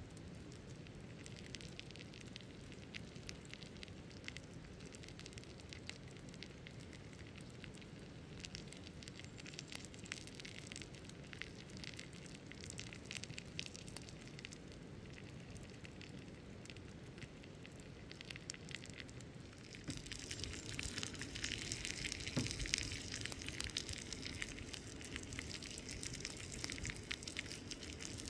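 Wood fire crackling with small pops under a stone slab. About two-thirds of the way through a louder, steady hiss joins in: a beef steak sizzling on the hot rock, with one sharper pop shortly after.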